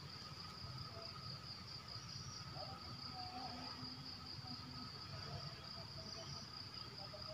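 Faint, steady chorus of insects chirring at dusk, an unbroken high-pitched trill with a fainter continuous lower band beneath it.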